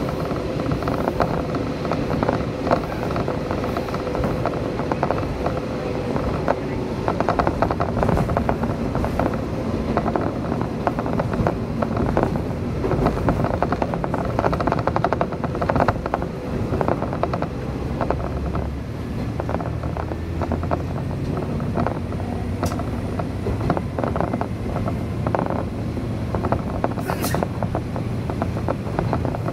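Diesel railcar running along the line, heard from inside the car: steady rattle and clatter of the wheels on the track, over a low engine drone that grows stronger in the second half.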